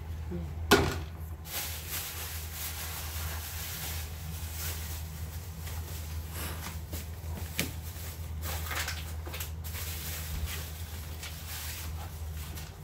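Food sizzling in a frying pan, an even hiss with small crackles, over a steady low hum, with one sharp clack about a second in.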